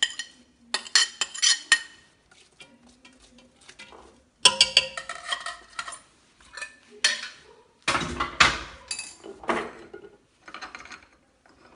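Spoon clinking and scraping against a glass bowl and the rim of an aluminium cooking pot as onion is scraped into the pot. It comes in several bursts of quick clinks and knocks: about a second in, about four and a half seconds in and about eight seconds in.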